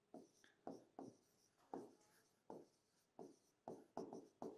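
Marker pen writing on a whiteboard: about a dozen short, faint squeaky strokes as words are written out.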